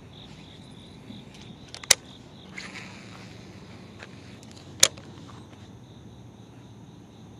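Insects chirring steadily, with two sharp clicks about three seconds apart as the rod and baitcasting reel are handled, and a brief soft rustle between them.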